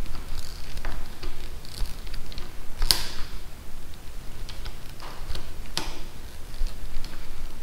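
Screwdriver driving a screw into a plastic handlebar clamp: irregular small clicks and ticks of the tool against the screw and the plastic parts, the sharpest about three seconds in.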